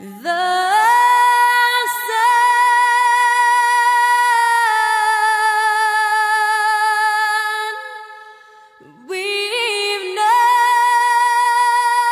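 A slow song sung by a woman, holding long notes with vibrato and sliding up into the first note. There is a short break about eight seconds in before the singing carries on.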